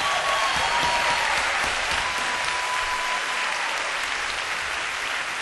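Audience applauding steadily, with a few thin high tones over it.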